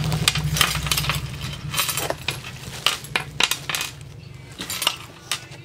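Small metal sewing machine attachments spilling out of a plastic bag onto a glass counter: a run of irregular sharp clinks and clatters, with the plastic bag crinkling.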